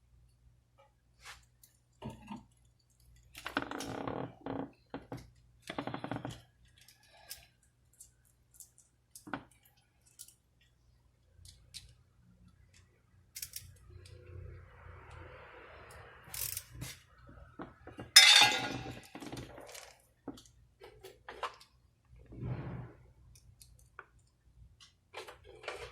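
Scattered metallic clicks and clinks of tools and small parts being handled, with a short rustle and one louder clattering knock about 18 seconds in.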